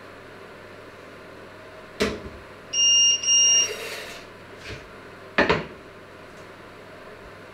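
Metal cookware clanks on the stovetop, then two short, loud electronic beeps from a kitchen appliance, then another metal clank a couple of seconds later.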